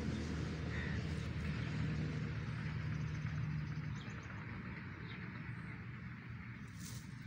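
Steady outdoor background noise with a low hum that eases off about four seconds in, and a few faint short bird chirps.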